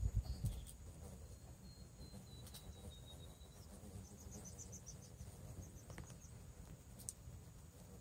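Faint outdoor insect chorus: a steady high-pitched drone of crickets or cicadas. A thin, slightly falling whistle runs through the first few seconds, and a quick run of chirps comes about halfway through, over a low rumble.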